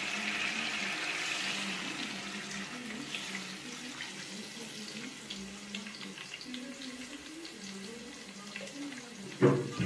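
Water poured from a plastic jug into a metal cooking pot of fried chicken pieces, a steady splashing pour that slowly fades. A sharp thump near the end.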